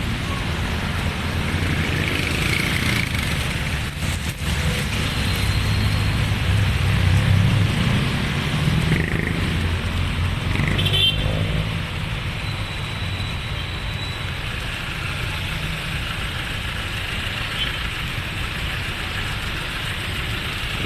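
Street traffic: vehicle engines running and passing, with a low rumble that swells for a few seconds around the middle over a steady hiss.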